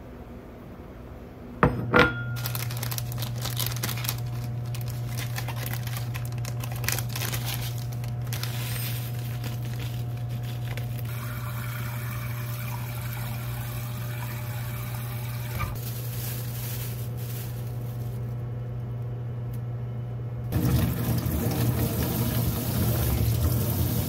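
Kitchen sounds: two sharp clicks, then a steady low hum under light clatter of dishes, and a tap running into the sink for the last few seconds.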